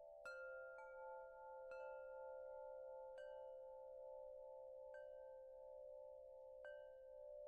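Wind chimes ringing faintly: about six slow, irregular strikes, each leaving a long ringing tone over a steady cluster of sustained notes.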